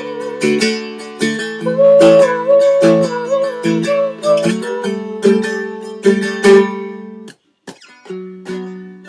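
Seagull Merlin strummed in a steady rhythm, about two strokes a second, its chords ringing on between strokes. The playing stops briefly about seven seconds in and picks up again about a second later.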